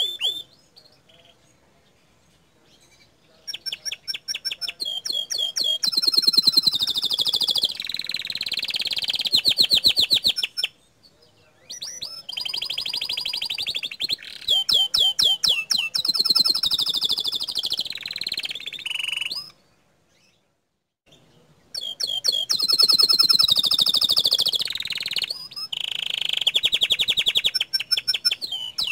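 Domestic canary singing long song bouts of rapid, rolling trills and quick repeated high notes, the 'tembakan' bursts prized in canary song. It goes quiet three times: just after the start, about a third of the way in, and about two-thirds in.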